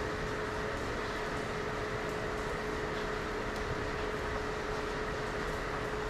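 A steady machine hum with one constant tone, and a few faint ticks as small wires and parts are handled.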